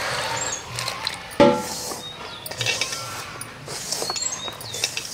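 Water pouring into wheat flour in an aluminium bowl, then hands mixing and kneading it into chapati dough. Birds chirp in the background, and a brief loud call sounds about a second and a half in.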